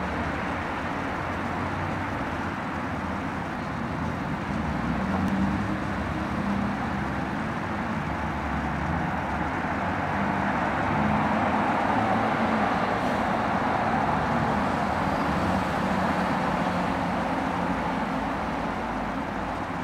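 Steady background rumble, swelling slightly around the middle; no watch ticking stands out.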